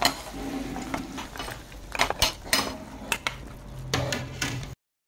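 Metal ladle and spatula scraping and clanking against a stone-coated wok as a stir-fry of crispy pork and Chinese kale is tossed, with several sharp knocks clustered a couple of seconds in. The sound stops abruptly just before the end.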